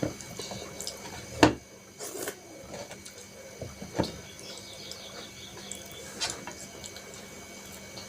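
Wet chewing and mouth sounds of eating rice and curry, with a few sharp smacks, the loudest about a second and a half in.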